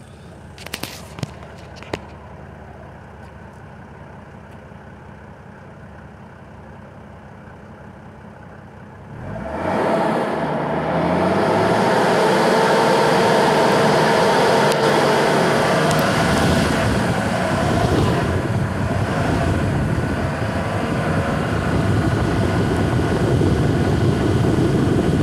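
Mercedes W140 300SD's turbo-diesel straight-six heard at its twin tailpipes: idling quietly with a few light clicks near the start. About nine seconds in it is revved up and held at high revs for about fifteen seconds.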